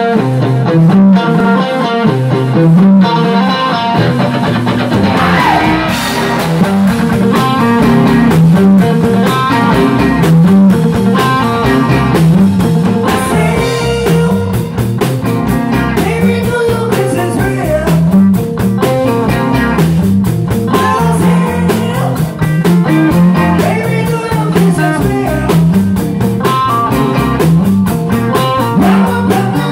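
Live rock and roll band playing: electric guitars, bass and drums, with a male lead singer. The drums and cymbals fill in about four seconds in and the band drives on at a steady beat.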